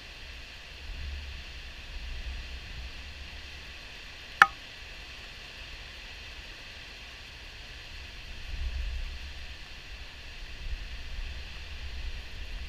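Water pouring over a river diversion dam's spillway at high flow: a steady rushing hiss, with a low rumble that swells a few times. A single sharp click about four and a half seconds in is the loudest sound.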